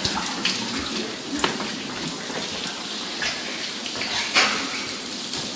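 Water from a burst frozen pipe pouring steadily from the ceiling and splashing, with scattered drips and splashes and a sharper splash about four seconds in.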